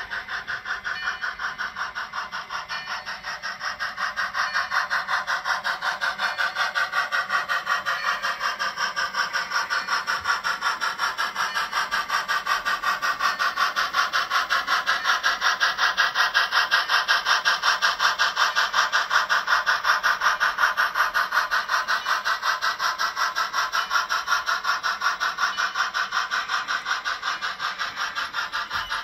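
On30 model steam locomotive and its string of hopper cars running on the layout track: a steady rhythmic sound of about four beats a second, growing louder as the train comes close past the camera and easing off near the end.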